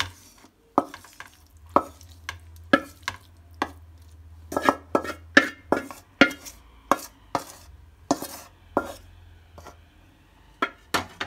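A spatula scraping and knocking against a metal kadai as cooked onion and tomato are pushed out of it into a steel mixer-grinder jar. The sharp knocks and scrapes come irregularly, about one or two a second, and are busiest a little before the middle.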